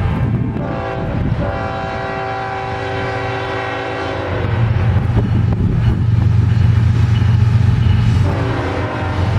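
Diesel freight locomotive's multi-chime air horn sounding a long blast starting about a second in, then a second blast beginning near the end, over a low rumble that grows louder from about halfway through as the train approaches.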